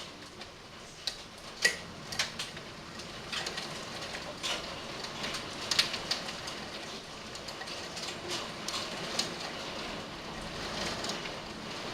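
Hailstones as big as golf balls striking hard surfaces in irregular sharp knocks, over the steady hiss of heavy rain.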